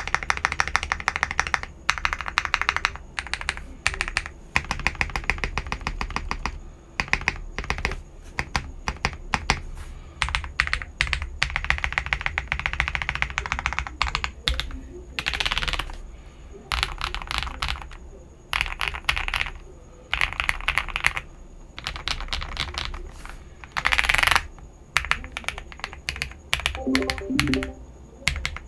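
Mechanical keyboard with lubed KTT Wine Red linear switches being typed on fast, in bursts of rapid keystrokes with short pauses between them.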